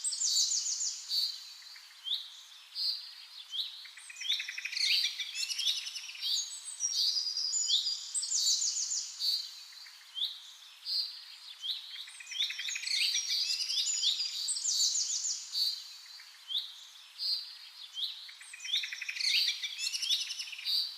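Songbirds singing, with overlapping high chirps and rapid trills repeated in phrases every second or two.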